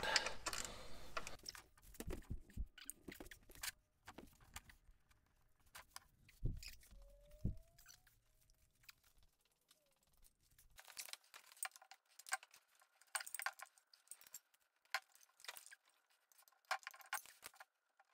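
Faint, scattered clicks and knocks of tools and parts being handled under a car, with two dull thumps about six and a half and seven and a half seconds in.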